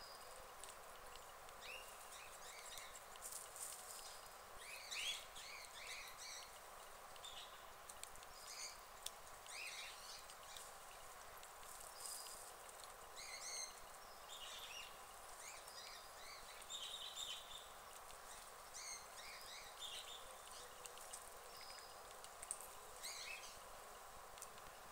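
Faint crunching and rustling of a guinea pig chewing and tugging dry straw, with scattered sharp clicks. Small birds chirp now and then in the background.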